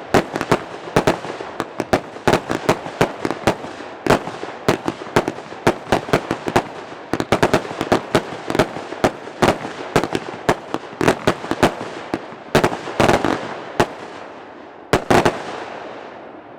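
Vulcan Fireworks "Mixed Emotions" firing a rapid, uneven string of shots and bursting bangs, several a second, with crackle and echo between them. The last bangs come about fifteen seconds in, and the sound then dies away.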